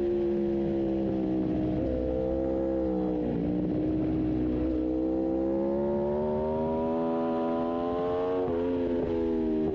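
Aprilia RSV4 1100 Factory V4 superbike engine at race pace. The revs sag for about three seconds, then climb steadily for about five seconds under throttle, before dropping abruptly and settling near the end.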